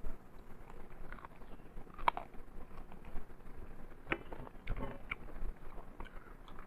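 A person eating mutton curry and rice close to the microphone, with moist chewing and lip-smacking clicks at irregular intervals. A few sharper smacks come about two, four and five seconds in.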